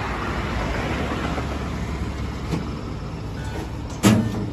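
Handling noise from plastic-wrapped electric scooters being manhandled out of a steel container truck: a steady rustle over a low rumble, then one loud thump about four seconds in.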